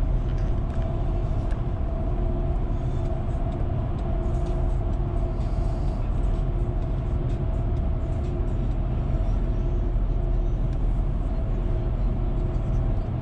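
Steady road noise inside a car cruising along a paved road: a low tyre and engine rumble with a faint steady drone.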